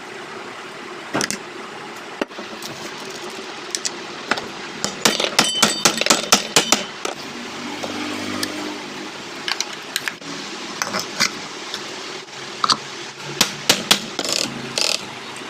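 Irregular metallic taps and clicks of hand tools working on a ceiling fan motor during a bearing change. About five to seven seconds in comes a quick run of sharper, ringing strikes.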